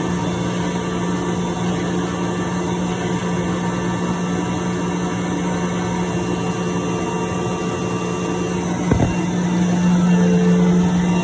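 10 HP Sullivan Palatek rotary screw air compressor running steadily with a low hum. About nine seconds in there is a single sharp click, after which it runs a little louder.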